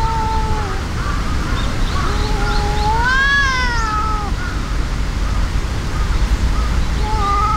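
Cats yowling in a fight standoff: drawn-out threat yowls. One fades out within the first second, a longer one rises then falls from about two to four and a half seconds in, and another begins near the end.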